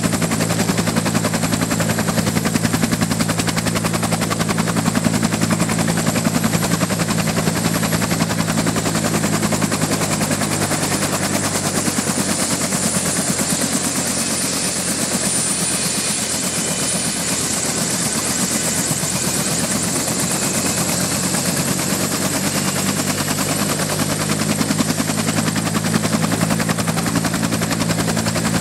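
UH-1 Huey helicopter running on the ground with its main rotor turning: a rapid, even blade chop over the high whine of its T53-K-13B turboshaft engine. The low drone underneath weakens for about ten seconds in the middle, then comes back.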